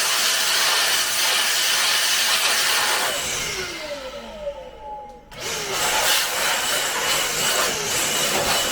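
Two long blasts of air blowing dust out of a desktop PC's case, each a loud hiss that fades into a falling whine as it winds down. The pause between them comes at about the midpoint.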